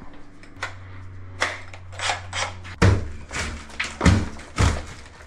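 A low steady hum, then three heavy thuds: the first about halfway in, two more close together near the end.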